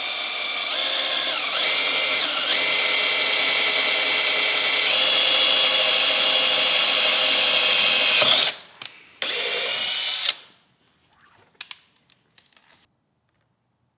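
Power drill running at speed, boring a pilot hole through the car's steel body panel at a weld; its whine dips briefly a couple of times as the bit loads up. It stops after about eight seconds, gives one short second burst, then only a few faint clicks follow.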